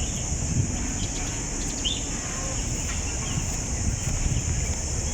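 Park ambience: a steady high insect drone with a few short bird chirps over it, about two seconds in most clearly, and a low uneven rumble underneath.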